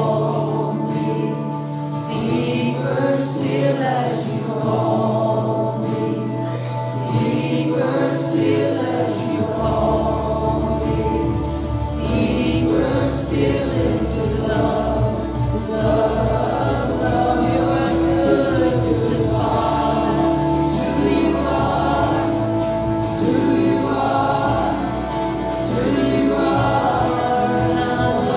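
A small worship team of men and women singing a slow congregational worship song together over sustained instrumental chords. A deeper bass note enters about ten seconds in.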